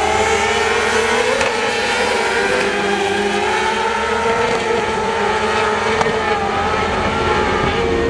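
A pack of motorcycle-engined cross karts running at high revs, several engine notes overlapping. The notes climb in pitch in the first second and then hold high as the karts race away.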